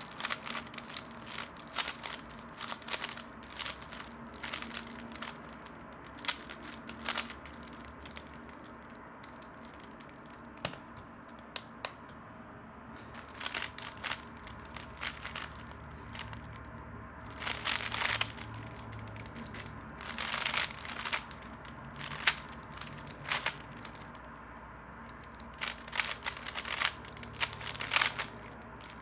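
A plastic 3x3 speedcube being turned fast, a rapid run of clicking and clacking turns in bursts broken by short pauses, over a faint steady hum.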